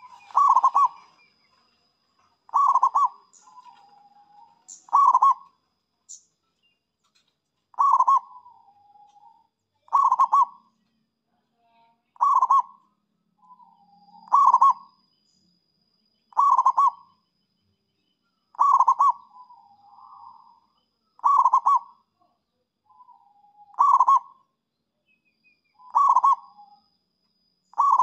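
Zebra dove (perkutut) cooing: a short phrase of rapid staccato notes repeated about every two seconds, a dozen times, with a softer, lower note between some phrases.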